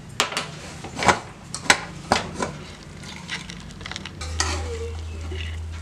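Aluminium pressure cooker lid being opened: a string of sharp metallic clicks and clanks as the lid is turned and lifted off the pot. A steady low hum starts about four seconds in.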